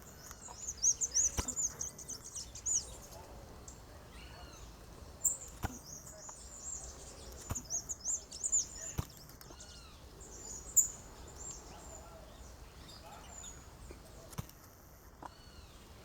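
Wild birds chirping: bursts of rapid, high-pitched chirps with a few lower arched call notes, and some sharp clicks.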